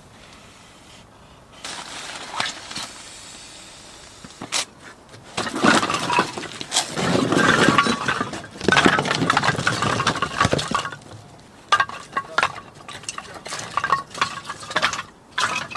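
Hard objects clattering and clinking as they are handled, with a dense stretch of rattling through the middle and a string of separate sharp knocks near the end.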